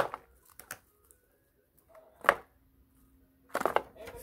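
Plastic candy wrappers and foil-wrapped chocolates crinkling as hands handle them, in brief sharp crackles: one at the start, one about two seconds in, and a quick run of them near the end.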